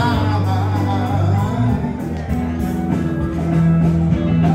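Music playing: a song with bass notes held and stepping from one to the next under singing and guitar.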